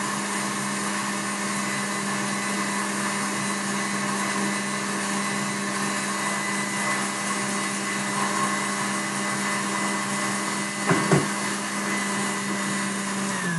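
Electric stand mixer running steadily with its wire whisk beating Italian meringue, a constant motor hum with a whirring whine over it. The meringue is being whipped while it cools toward 30 °C so it thickens and firms. A brief knock comes about eleven seconds in, and the motor begins to wind down, its pitch dropping, at the very end.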